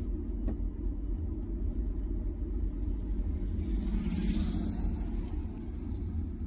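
Steady low rumble of a moving car's engine and tyres on the road, heard from inside the cabin, with a brief swell of hiss about four seconds in.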